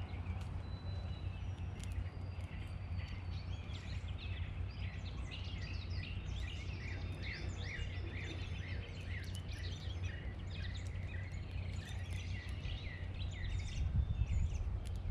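Several songbirds chirping and singing, with quick repeated notes that are densest in the middle, over a steady low rumble of outdoor background noise.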